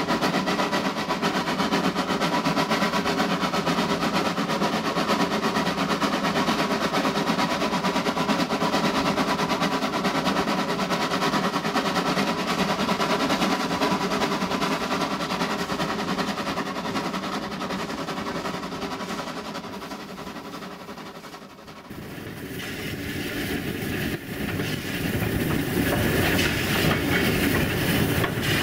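LB&SCR A1X Terrier 0-6-0 tank steam locomotive running along the line: a steady running noise of the engine and wheels on the rails with a few steady tones in it. A little past two-thirds through the sound dips, changes abruptly and then builds louder again.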